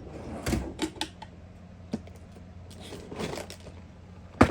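Scattered small clicks and taps of a metal fidget spinner being handled as its bearing is worked out of the body, with a sharper knock near the end.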